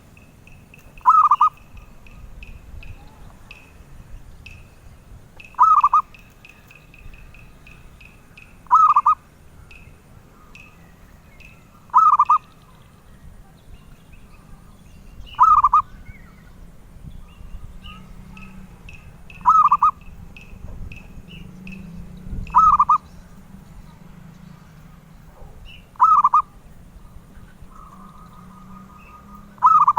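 Zebra dove (perkutut) cooing: a short, loud coo repeated about every three to four seconds, nine times. Between the coos there is fainter, fast, high chirping, and a longer trill comes just before the last coo.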